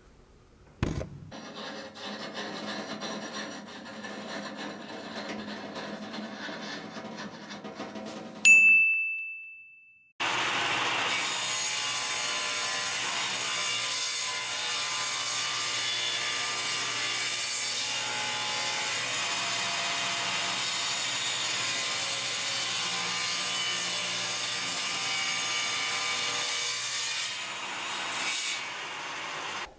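Quieter mechanical rattling for several seconds, then a single loud metallic ring that dies away. About ten seconds in, a table saw starts cutting and steadily rips a narrow wooden strip fed along the fence, until near the end.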